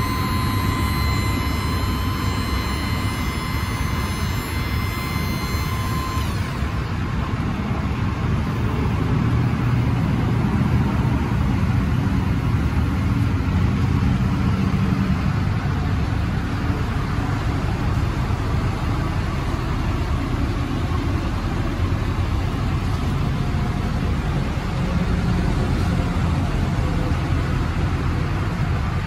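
Ford 6.7L Power Stroke turbo-diesel idling steadily. A steady high-pitched tone sounds over it and stops about six seconds in.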